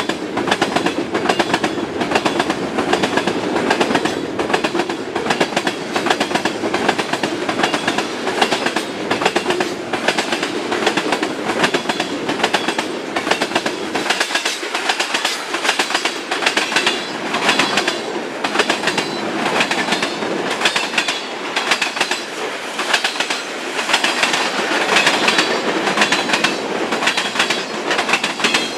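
Freight train cars rolling past at speed, their steel wheels clicking steadily over the rail joints under a continuous rumble. The low rumble thins out about halfway through while the clicking goes on.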